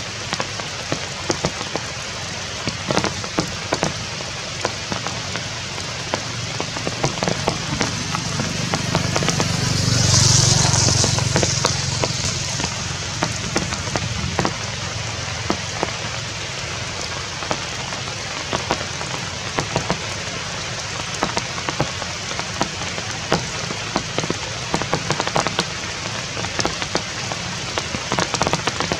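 Rain falling steadily, with many individual drops ticking on surfaces. About ten seconds in, a louder rushing swell builds and fades over a few seconds.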